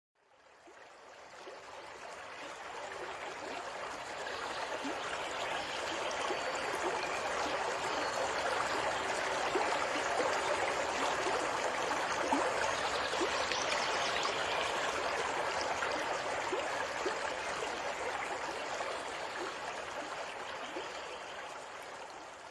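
Small stream splashing and trickling in little cascades over rocks into a pool, a steady rush of water that fades in over the first few seconds and eases off near the end.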